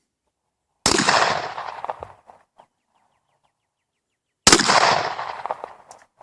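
Glock pistol fired twice, a little under four seconds apart; each shot is sharp and is followed by a long fading echo.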